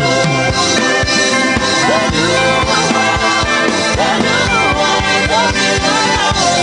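Gospel worship music played by a band, with sustained chords, a gliding melodic line and a steady drum beat.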